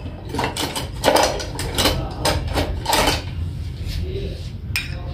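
Scattered short clicks and knocks, several a second at times, over a steady low hum.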